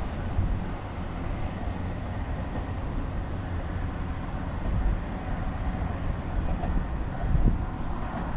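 Diesel railcar pulling away down the line, its engine and running gear giving a steady low rumble, with wind buffeting the microphone.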